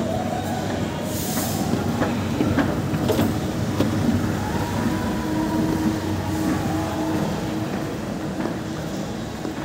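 Steady mechanical hum made of several low tones, with a few faint clicks.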